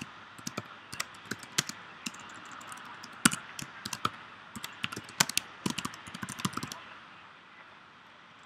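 Typing on a computer keyboard: irregular key clicks as a name is typed, stopping about seven seconds in.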